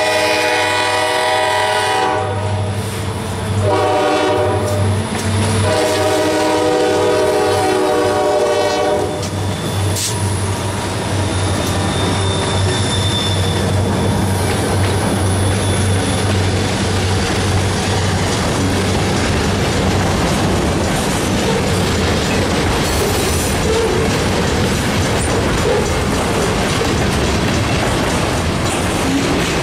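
Pan Am Railways EMD diesel freight locomotives sounding their horn for a grade crossing: a long blast ending about two seconds in, a shorter one, then a final long blast to about nine seconds, over the engines' steady low drone. After the horn stops, the freight cars roll past with steady wheel and rail noise and clickety-clack.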